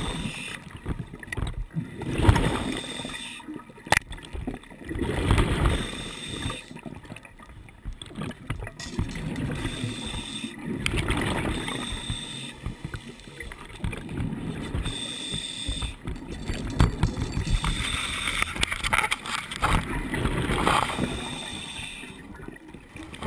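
Scuba diver breathing through a regulator underwater: exhaled bubbles rumble and gurgle past the microphone in swells every few seconds. There is one sharp click about four seconds in.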